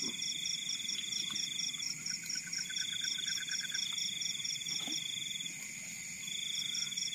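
Insects calling in chorus: several steady high trills. One comes in phrases of a couple of seconds with short breaks, another pulses about four times a second, and a short fast trill sounds lower down about two seconds in. A couple of soft knocks come from the meal.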